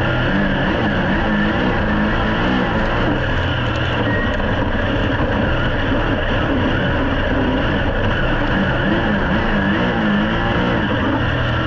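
Onboard sound of a super saloon dirt-track race car's V8 engine running hard at race pace, its pitch wavering up and down through the corner and onto the straight.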